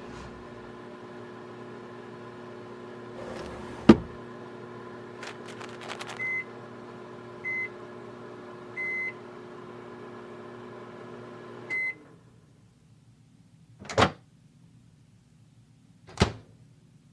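Microwave oven running with a steady hum while warming a heat pad. There is a click about four seconds in and several short high beeps, and the hum stops with the last beep. Two sharp clacks follow.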